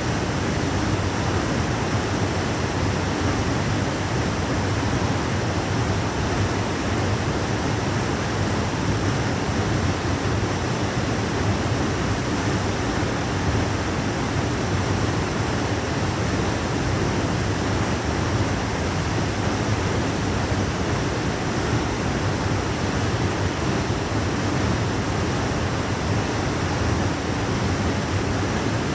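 Waterfall rushing: a steady, unbroken roar of falling water, full and deep.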